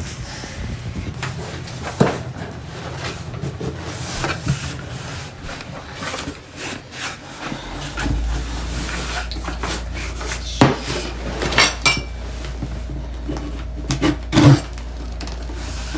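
Delivery boxes being handled and opened: scattered knocks, taps and rustles, with the loudest knocks in the second half. A low steady hum comes in about halfway through.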